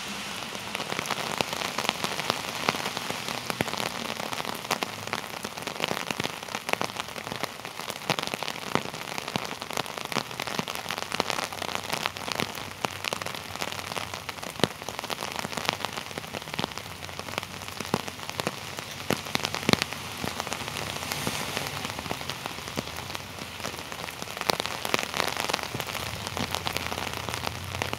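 Torrential rain falling steadily, with many separate drop hits close to the microphone. A low rumble builds near the end.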